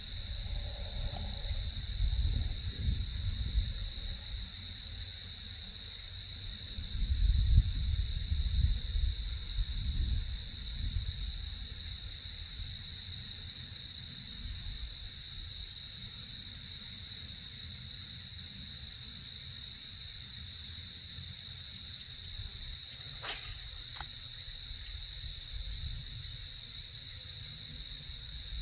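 Steady chorus of insects, a continuous high trill with a faster pulsing chirp above it. Low rumble comes and goes in roughly the first ten seconds, and there is a single sharp click a little over twenty seconds in.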